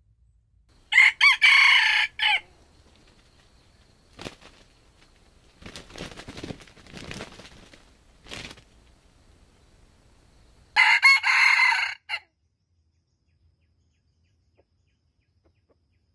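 Red junglefowl rooster crowing twice, about ten seconds apart, each crow short and clipped at about a second and a half. Between the crows there are softer rustles and a couple of light clicks.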